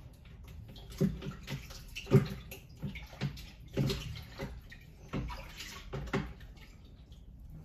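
Water splashing in a run of short splashes about once a second, as a Shapton Kuromaku 5000 whetstone is wetted before sharpening.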